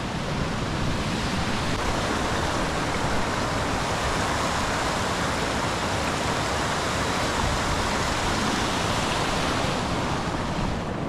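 Fast, muddy river rushing over rocks and small stepped cascades: a steady, even hiss of flowing water.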